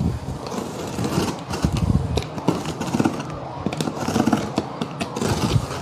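A utility knife slitting the packing tape along a cardboard box's seam, and the tape being worked loose from the cardboard: continuous scraping and crackling with many small clicks.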